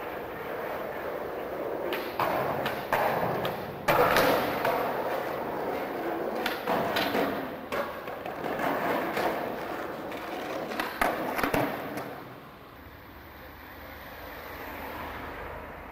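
Skateboard wheels rolling over pavement, with several sharp clacks of the board popping and landing. The rolling dies away about three-quarters of the way through.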